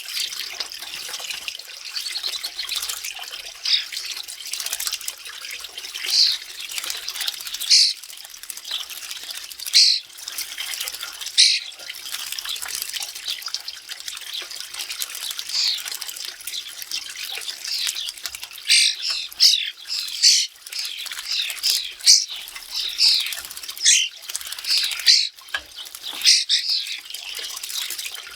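European starlings splashing in a bird bath: a steady patter of water, with short squawks and chirps from the birds that come thicker in the second half.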